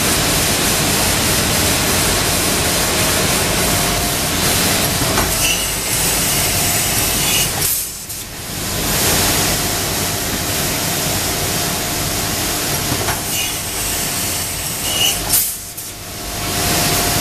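IMA BIMA 1000 CNC router running: a loud, steady rushing noise with a faint steady whine, dropping away briefly about eight seconds in and again near the end.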